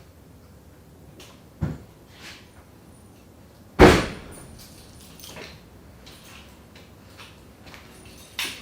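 A door slamming shut: a soft thump about one and a half seconds in, then one loud slam that rings briefly, and a smaller knock near the end.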